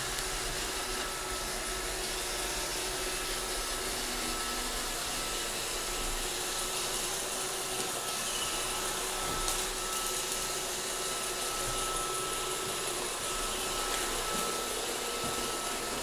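Roomba robot vacuum running across a wooden floor: a steady whir of its motor and brushes with a thin, steady whine running through it.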